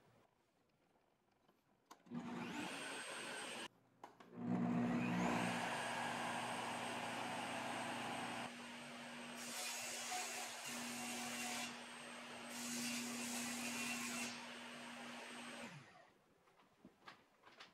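Portable table saw's motor starting up with a rising whine and running steadily with no load. It starts about two seconds in, breaks off briefly, starts again and runs until it winds down near the end.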